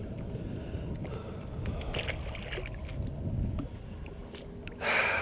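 Wind rumbling on the microphone and water against a small fishing boat's hull, with a few light clicks of gear being handled. Near the end comes a loud, short whoosh.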